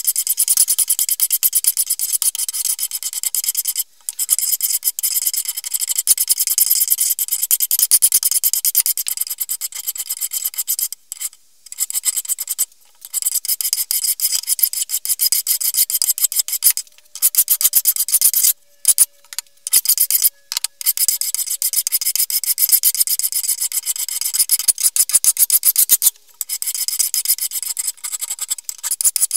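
Flat hand file scraping in repeated strokes across the steel cheek of an old fireman's axe head held in a vise. It makes a steady rasp, broken by a few short pauses between runs of strokes.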